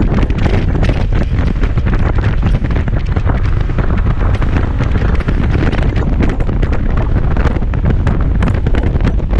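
Heavy wind buffeting on the microphone of a moving Kymco Xciting 250i scooter: a constant deep rumble with a dense crackle of gusts, the scooter's engine and road noise underneath.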